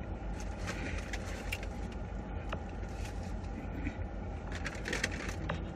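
Steady low rumble of a car, with intermittent crinkling and light clicks from food wrappers being handled.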